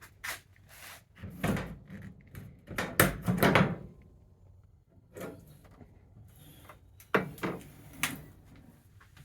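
Aluminum truck toolbox lid and latch being handled and opened: a series of knocks and clunks, the loudest cluster about three seconds in.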